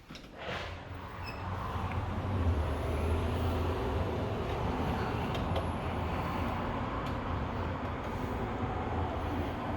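A short click about half a second in, then a steady outdoor rumble of city traffic with a low hum, building over the first two seconds and holding.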